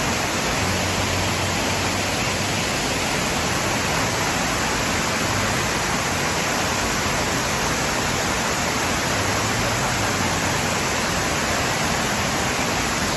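Waterfall: steady, unbroken rush of falling water, the Nabegataki Falls curtain of water.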